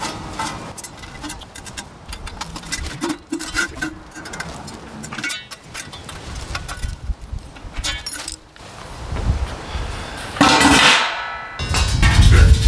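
Small metal clicks and clinks as a bolt is tightened with hand tools through the steel lid of a Pit Barrel Cooker. A louder metallic scrape rings out about ten seconds in, and near the end the empty steel barrel is shifted with a heavy rumble.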